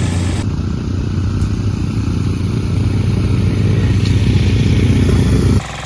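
Engine running with a deep, steady drone that grows louder, then cuts off abruptly near the end to a quieter engine sound.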